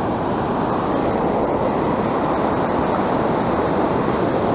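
Steady rush of ocean surf breaking along a sandy beach.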